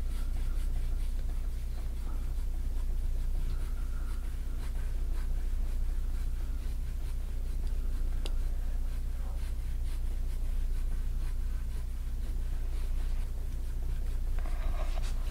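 Gua sha tool scraping in repeated strokes across the skin of a person's back, a soft rasping. A steady low hum runs underneath.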